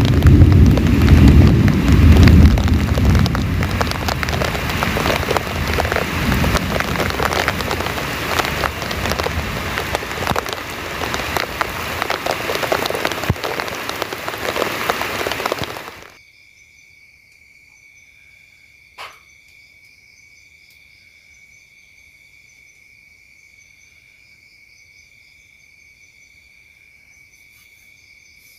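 Heavy rain pouring down, with a deep rumble through the first few seconds. About halfway through, the rain cuts off abruptly and insects take over, a quiet steady high chirring, with a single sharp click a few seconds later.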